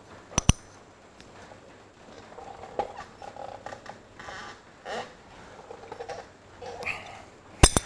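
Steel spanners clinking on the kingpin's top bolt as it is tightened: two sharp metallic clinks just after the start and a quick cluster near the end. In between, faint irregular creaking from the shed's structure.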